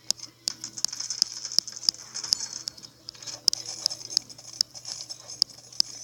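A run of light, sharp clicks at a fairly even pace, about two to three a second.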